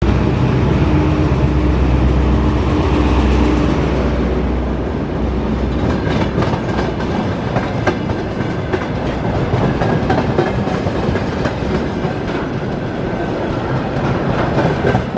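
TEM14 diesel shunting locomotive running past close by, its diesel engine loud and steady for the first few seconds and then fading. From about six seconds in, a string of tank wagons rolls past with a rhythmic clatter of wheels over the rail joints.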